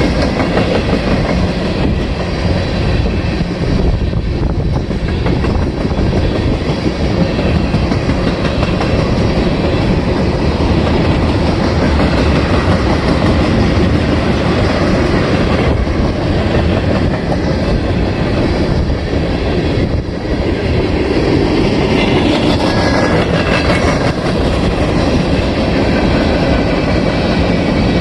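Freight train of covered hoppers and tank cars rolling past close by: a steady rumble of steel wheels with rhythmic clickety-clack over the rail joints.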